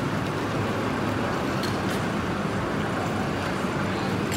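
Steady road noise of a car being driven: tyre rumble and engine heard from inside the moving car.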